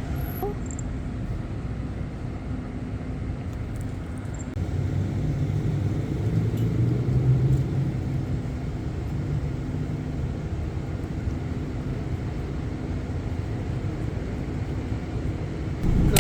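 Steady low rumble of a motor vehicle running, swelling about five seconds in and easing back a few seconds later.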